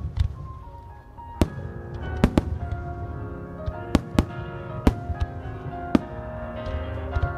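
Aerial fireworks shells going off in a string of sharp bangs, some in quick pairs, over music with long held tones.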